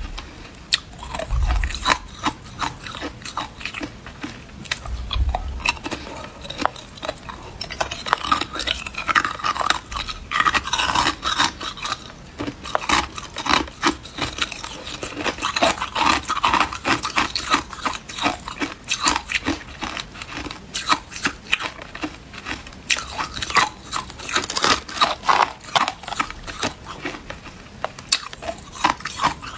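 Hard clear ice being bitten and chewed, a continuous run of crisp cracking crunches, with two low thumps in the first few seconds.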